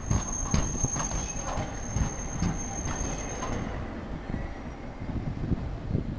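Hankai Tramway streetcar No. 711 passing close by, its wheels knocking over rail joints about twice a second over a low rumble. A steady high-pitched wheel squeal sounds for the first few seconds, then fades out.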